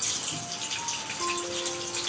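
Peeled boiled eggs sizzling and spattering in hot oil in a kadhai, under background music of single held notes.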